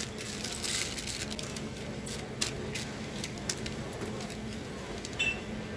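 Plastic food packets crinkling and crackling as they are handled and shifted in a chest freezer, in a few short irregular bursts over a steady low hum.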